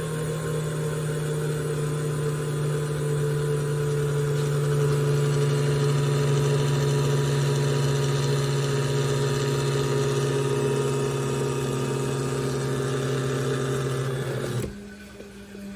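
Nutribullet 600-watt blender motor running steadily, puréeing vegetables with water for baby food, then switching off abruptly near the end.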